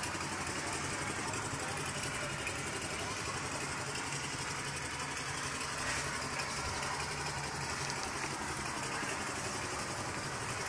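A motor running steadily, with a low hum under an even hiss.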